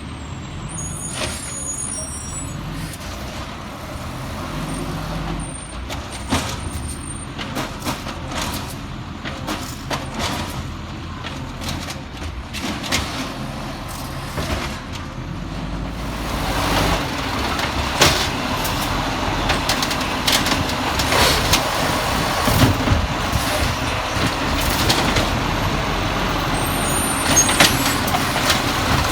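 Volvo garbage truck running, its engine rumbling steadily under repeated clanks and knocks, growing louder about halfway through.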